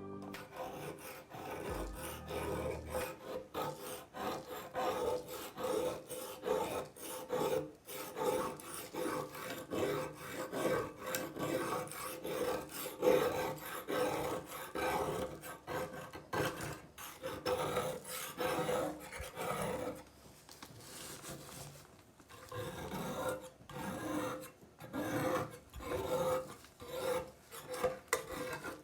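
Rhythmic back-and-forth rasping strokes of a file or abrasive being worked by hand over a rusty steel knife blade to strip the rust, about two strokes a second, with a short pause about two-thirds of the way through.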